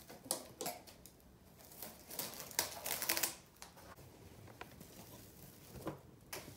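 Plastic cling wrap crinkling over a mixing bowl, mixed with scattered light clicks and taps of handling, with a denser crinkly stretch about two to three seconds in.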